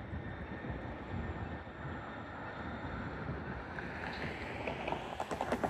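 Sound Transit Link light rail train approaching on its track, its running noise swelling over a few seconds, with a quick run of clicks near the end as the wheels come over the rail joints. Wind on the microphone rumbles underneath.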